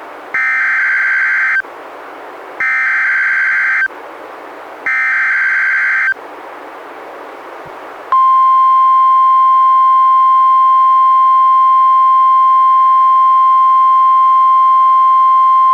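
Emergency Alert System alert on NOAA Weather Radio announcing a Special Marine Warning. It opens with three short bursts of screeching SAME header data tones with faint radio hiss between them. About eight seconds in, a loud, steady single-pitch 1050 Hz warning alarm tone begins.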